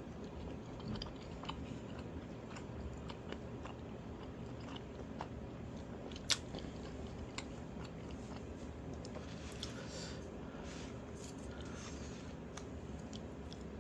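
A person chewing a mouthful of sundae (Korean blood sausage), with small wet mouth clicks over a steady low hum. One sharper click stands out about six seconds in.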